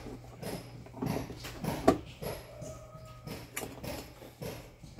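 Scattered clicks and knocks of fan-motor parts being handled as the stator coil is fitted into the motor housing, with one sharper click a little before the middle.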